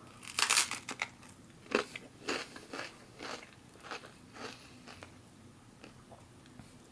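Biting into crispbread topped with pickled herring: a loud crunch about half a second in, then chewing with irregular crunches that grow fainter over the next few seconds.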